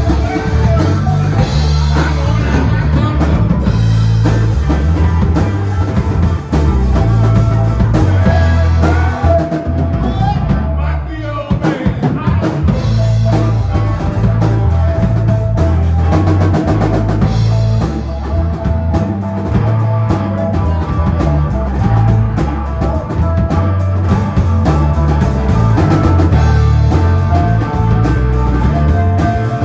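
Rock band music with bass, drum kit and guitar, and some singing.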